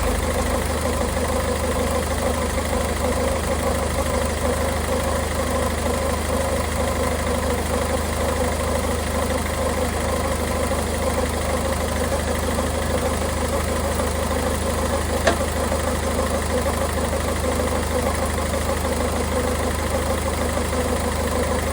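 Peugeot 3008's 1.5 BlueHDi three-cylinder diesel idling steadily, kept running so the Aisin EAT8 gearbox fluid stays in its 35–45 °C level-check range while the excess drains. A single click sounds about two-thirds of the way through.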